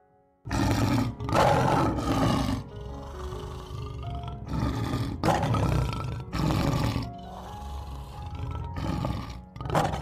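Lion roaring: a bout of loud, rough calls, three in a row starting about half a second in, three more after a short pause, and a short last one near the end. Soft background music runs underneath.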